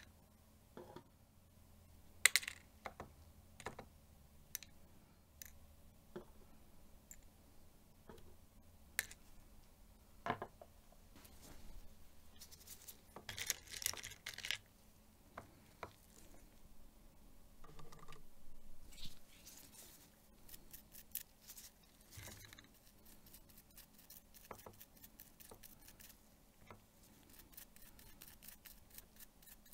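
Small metal parts from a Minolta AL-F rangefinder camera handled with tweezers and scrubbed with a small stiff brush in a plastic cup: scattered light clicks and taps, the loudest a couple of seconds in, then spells of quick scratchy brushing from about halfway and again near the end.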